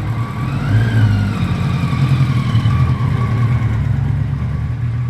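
1984 Kawasaki ZN1100 LTD's inline-four engine running, with a brief rev about a second in before it settles back to a steady run.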